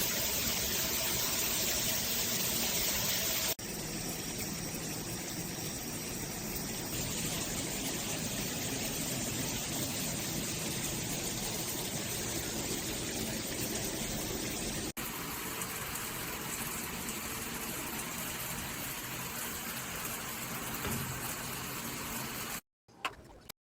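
Water spraying steadily from a shower head, a continuous rushing hiss, changing abruptly twice as the sound jumps between clips and cutting off to silence near the end.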